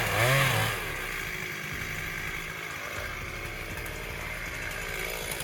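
A small engine drops in pitch from a brief rev during the first second, then runs at a steady idle.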